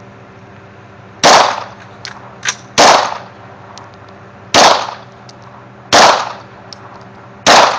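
Five loud pistol shots, unevenly spaced about one and a half seconds apart, each followed by a short echo. A fainter crack falls between the first two.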